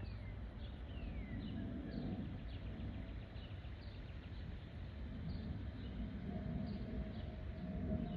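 Distant Airbus A319 jet rumble carrying a faint steady whistle, the howl of the wing's fuel over-pressure protector (FOPP) cavities. Small birds chirp over it in short, falling calls, one or two a second.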